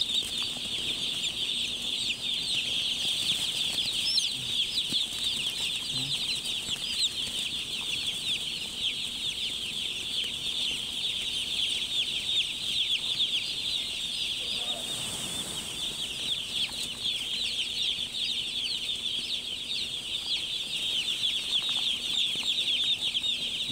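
Thousands of young chicks peeping all at once, a dense, steady chorus of short, high cheeps.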